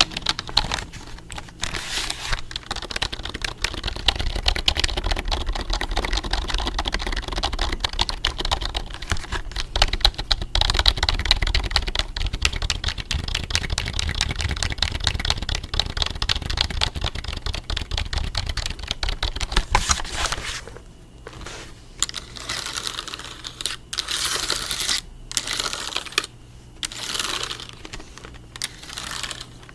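Fast, continuous typing on a computer keyboard, clicking keys in a dense stream, thinning after about twenty seconds into shorter, spaced-out bursts of keystrokes. A low rumble from a lawn mower running nearby sits underneath the dense typing.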